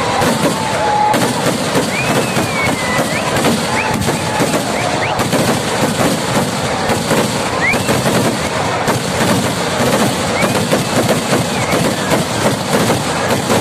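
Kerala vedikettu fireworks going off in a continuous rapid barrage, rockets fired in quick succession, making a dense, unbroken crackle of bangs. A few short whistles glide up and down above it.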